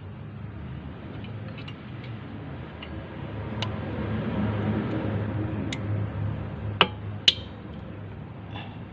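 A few short, sharp clicks over a low steady hum, the two loudest close together about seven seconds in.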